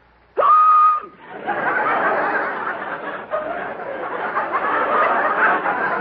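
A man's sudden, loud, high-pitched comic hiccup, sharply rising in pitch and lasting about half a second, followed by a studio audience laughing steadily for the rest of the time.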